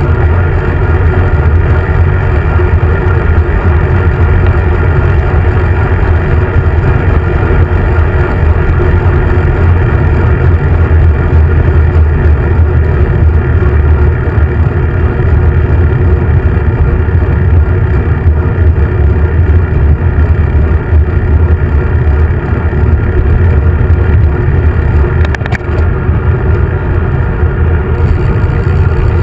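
Loud, steady low rumble of wind buffeting and road vibration on a handlebar-mounted camera while a bicycle rides along a street, mixed with the sound of car traffic around it. A single faint click about 25 seconds in.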